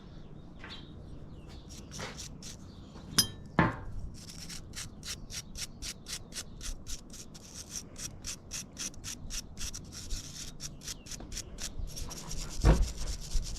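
A few light knocks, then brisk, even scrubbing strokes, about three or four a second, as a jet ski carburetor part is cleaned off by hand.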